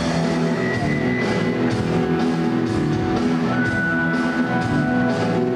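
Live rock band playing: sustained electric guitar and keyboard-like notes over a steady drum-kit beat.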